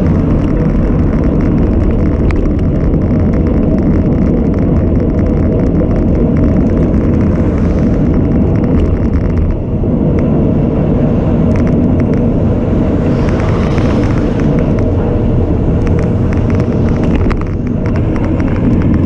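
Steady wind rush and road noise on a cycling camera's microphone as the bike rolls along a road. A car swells past about two-thirds of the way through.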